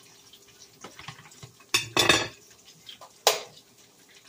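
Dishes and utensils being handled, clattering three times: a clink about a second and three-quarters in, a short run of clatters just after, and one sharp knock a little past three seconds.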